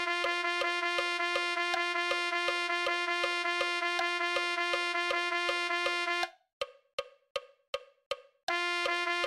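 Notation-software playback of a rhythm exercise: rapid repeated notes on a single pitch, G, over a steady metronome click. About six seconds in, the notes stop for a bar's rest, leaving only the clicks at a little under three a second, and the notes start again near the end.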